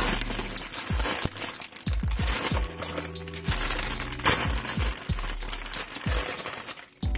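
Clear plastic bags crinkling and rustling as hands open them and pull out plastic model-kit parts on their runners, with a sharp crackle about four seconds in.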